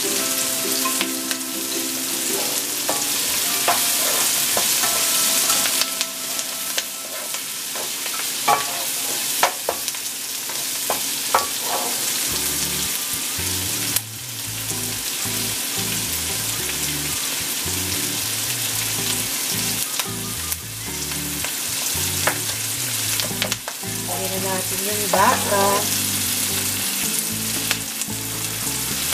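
Chopped onion and garlic sizzling in hot oil in a nonstick pan, with occasional clicks and scrapes of a plastic spoon stirring them.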